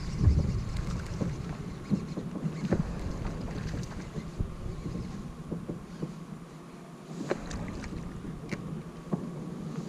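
Wind rumbling on the microphone, with scattered light clicks and knocks from a baitcasting reel being cranked in a sit-on-top kayak. The rumble eases for a moment about two thirds of the way through.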